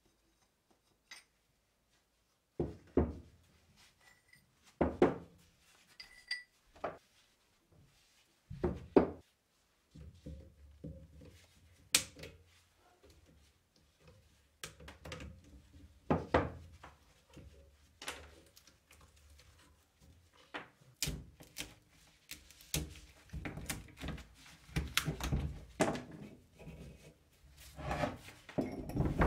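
Rusty cast-iron grape-crusher parts being handled and taken apart: scattered metal knocks and clinks as pieces are moved and set down, a stretch of scraping about ten seconds in as pliers work a rusted nut on a shaft, and denser clatter near the end.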